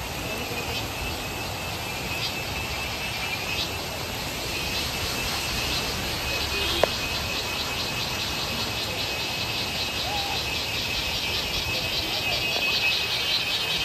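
Forest insects calling: a steady high buzz with a fast, evenly pulsing chorus that grows more distinct from about halfway, over a soft background rush, with one sharp click near the middle.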